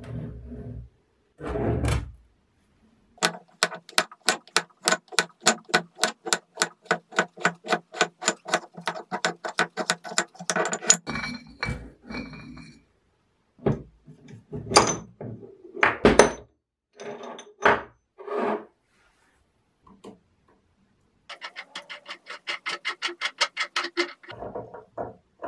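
Metal tool parts being handled during disassembly: scattered knocks and clunks, and two long runs of even, rapid metallic clicking, the first at about four clicks a second, the second denser and starting near the end.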